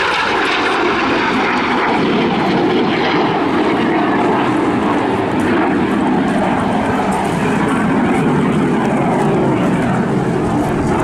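BAC Strikemaster Mk82A's Viper turbojet, a loud continuous jet noise as the aircraft pulls up and departs, its high hiss dimming after a couple of seconds.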